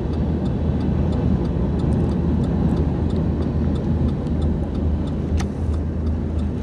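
Freight train rolling across a steel railroad bridge: a steady, heavy low rumble with a faint regular ticking over it.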